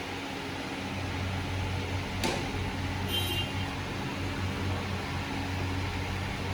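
Steady mechanical hum, with a sharp click about two seconds in and a brief high squeak about a second later.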